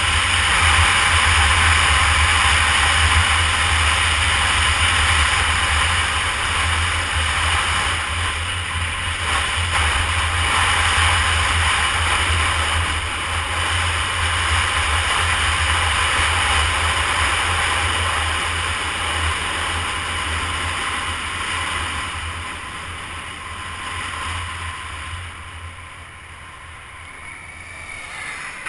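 Wind rushing and buffeting over the microphone of a Honda CBR250R motorcycle at road speed, a dense roar with a low flutter, with the bike's running and road noise underneath. It dies down over the last several seconds.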